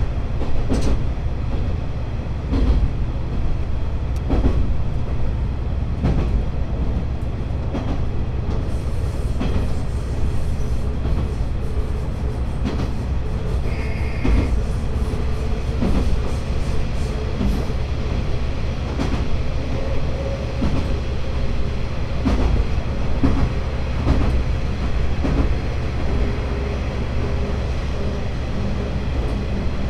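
Diesel railcar running along the line, heard from on board: a steady low engine drone with the clickety-clack of the wheels over rail joints every second or two. A brief high tone sounds about halfway through, and a new steady engine note comes in near the end.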